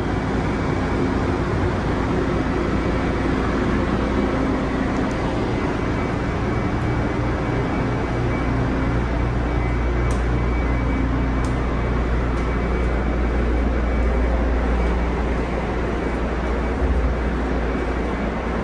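Steady low rumble and noise inside a MARTA rail car, with a faint steady hum and a couple of light ticks about ten seconds in.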